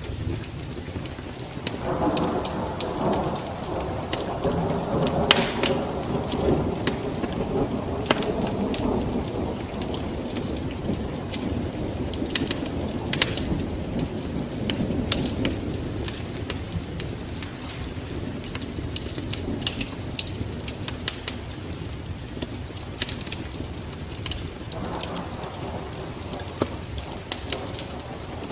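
Wood fire crackling in a fireplace: a steady run of sharp pops and snaps over a low rumble that swells a couple of seconds in and again near the end.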